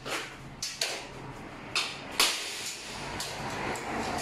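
Irregular metal knocks and clanks from work on a steel roll-up shutter door and its mounting brackets, the loudest about two seconds in.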